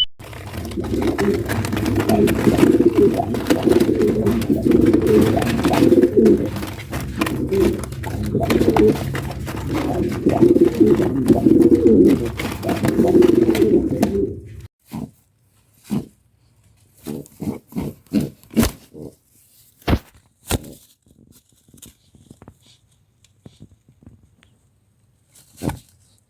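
Pigeons cooing, a dense run of low, throbbing coos for about the first fifteen seconds, then stopping. After that come scattered short clicks and taps.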